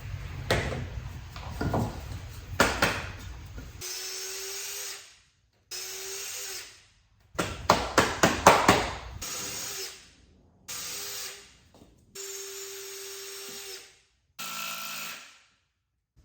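Power drill boring holes through hard oak into a pine log, running in short stop-start runs with a steady motor whine. A quick cluster of sharp knocks comes a little past halfway through.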